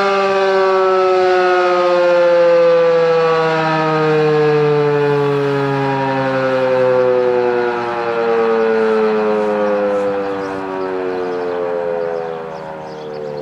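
Federal Signal 2001-SRN outdoor warning siren winding down, its pitch falling steadily. Its loudness swells and fades about every two seconds as the rotating head sweeps past.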